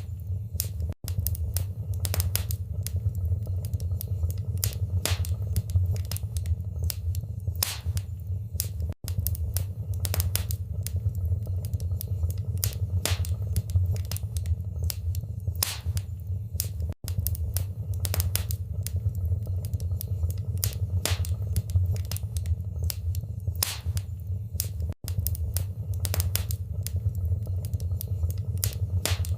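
Wood fire burning in a fireplace: a steady low rumble with sharp, irregular crackles and pops. The sound cuts out for an instant four times, eight seconds apart, at the seams of a loop.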